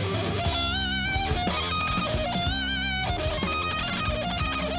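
Hard rock music with electric guitars, bass and drums; a lead guitar holds wavering vibrato notes twice.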